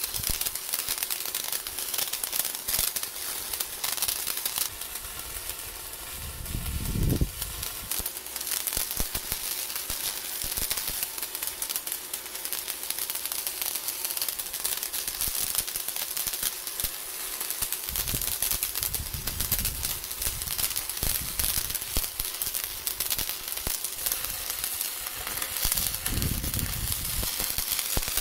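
Stick-welding arc crackling and sizzling steadily as the electrode burns, with a few low rumbles coming and going.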